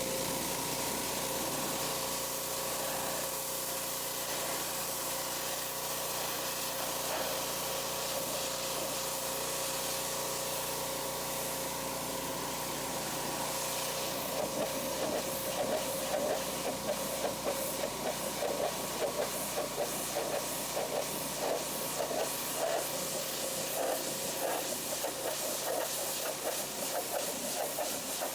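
Pressure washer running and spraying: a steady hiss of water with a motor hum beneath. About halfway through, the spray turns into an uneven, fluttering hiss.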